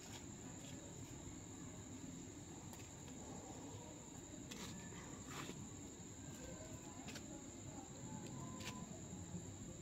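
Faint, steady, high-pitched insect drone, with a few soft clicks partway through.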